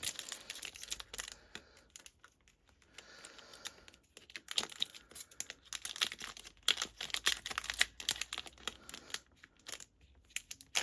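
Trading card pack wrapper being torn open and crinkled by hand: a run of short, irregular crackles and tearing sounds, busiest in the second half.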